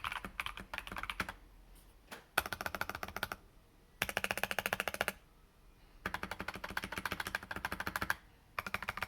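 GK64 mechanical keyboard with unlubed Tecsee Carrot linear switches, an aluminium plate and PBT keycaps, typed on fast in bursts of rapid keystrokes. The bursts last one to two seconds each, with short pauses between them, about five runs in all.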